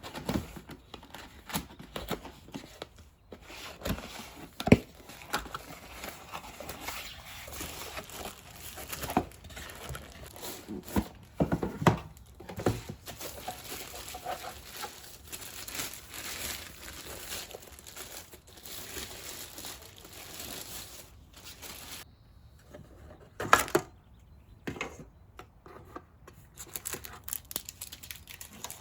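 Crinkling and rustling of things being handled, with scattered clicks and a few sharp knocks.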